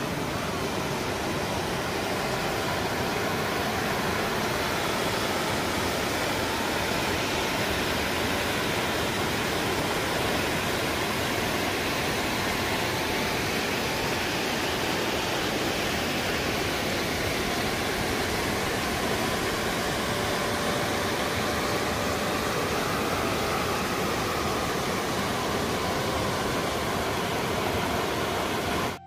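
Fast, muddy floodwater rushing and churning through a breached channel in a steady, unbroken wash of noise.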